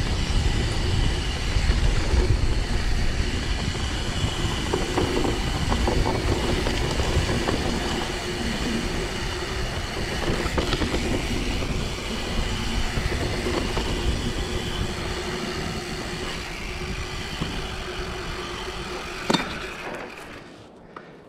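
Mountain bike descending a rough grassy trail: wind on the microphone and tyres rumbling with the bike rattling over bumps, dying away as the bike slows to a stop near the end, with one sharp knock just before it stops.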